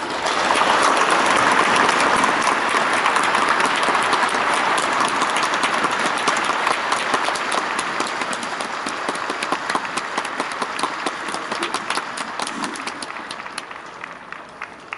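Stadium crowd applauding. It swells at once, then slowly thins out to scattered claps near the end.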